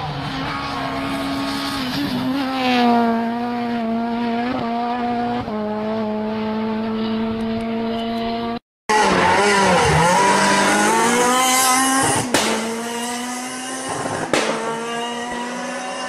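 Renault Clio R3 rally car's 2.0-litre four-cylinder engine running hard on a stage, holding a steady high note for about eight seconds. After a brief gap, the engine revs up and down through gear changes, with two sharp cracks near the end.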